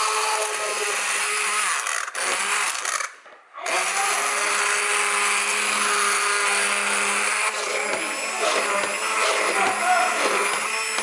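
Cuisinart hand-held immersion blender running in a steel pot of cooked squash and sweet potato chunks, puréeing them into soup. The motor stops briefly about two seconds in and again for half a second a second later, then runs on steadily.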